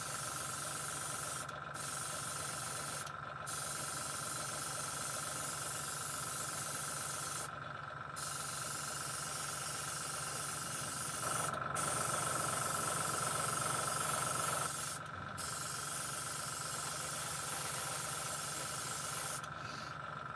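Airbrush spraying paint: a steady hiss of air and paint, cut off briefly about six times as the trigger is let go and pressed again.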